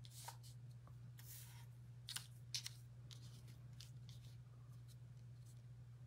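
Near silence with a steady low hum, broken by a few faint rustles and light ticks of card stock being handled and set down, the clearest about two seconds in and again half a second later.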